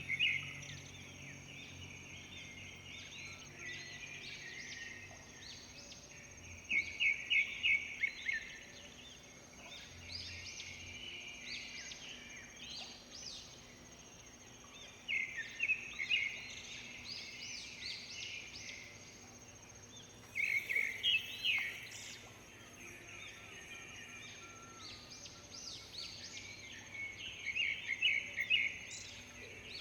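Birds singing: one loud phrase of rapid notes comes back about every seven seconds, with softer chirps between, over a steady high thin tone.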